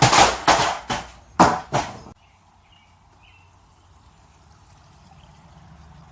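A quick run of about six loud, sudden knocks and smacks over two seconds, cutting off abruptly to a faint, steady background hum with a couple of faint short chirps.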